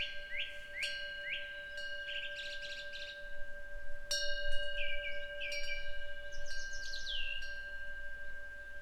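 Korean temple wind bell (pungyeong) ringing with a long, steady tone, struck again about a second in and about four seconds in. Small birds chirp over it, with a run of short rising calls in the first three seconds and more calls around five to seven seconds.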